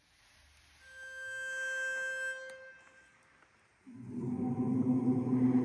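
A pitch pipe sounds one steady note for about two seconds to give the starting pitch. Then, a little under four seconds in, an a cappella barbershop chorus comes in singing sustained chords.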